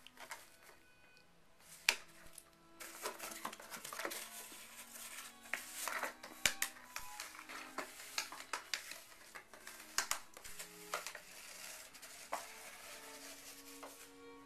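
A Havanese puppy chewing and pawing at a small cardboard box: an irregular run of scratchy cardboard crackles, scrapes and sharp taps. Quiet background music with held notes plays underneath.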